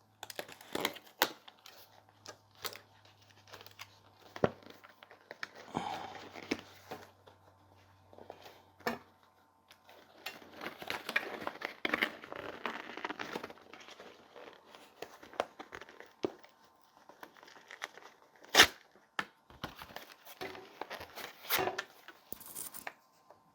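Packaging being torn open and handled: tearing and crinkling in stretches, with scattered clicks and taps and one sharp click about three-quarters of the way through.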